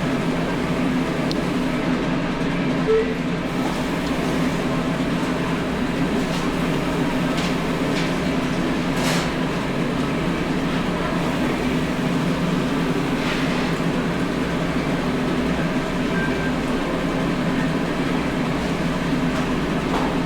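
Rational SCC combi oven running its clean-jet function test, giving a steady mechanical hum as its pumps move water through the freshly replaced care pump circuit and refill the steam generator.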